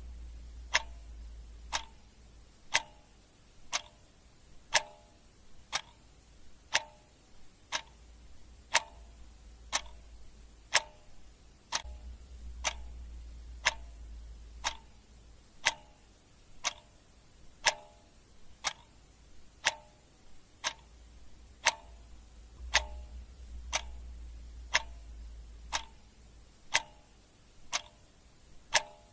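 Clock ticking steadily, about one tick a second, with a faint low hum that swells and fades in places.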